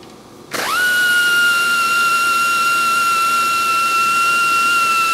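Electric power tool motor spinning up quickly to a steady high whine, holding one speed, then stopping abruptly near the end.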